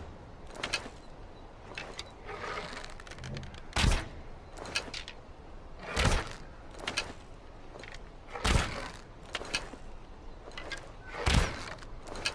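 A longbow being shot again and again: four sharp thuds of the string's release, about every two and a half seconds, with lighter clicks and knocks in between.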